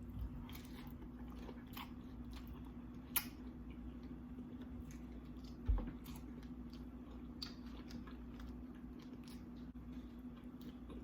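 Quiet chewing and small wet mouth sounds of someone eating seafood nachos, with scattered soft clicks, a sharper click about 3 seconds in and a low thump near 6 seconds. A faint steady hum runs underneath.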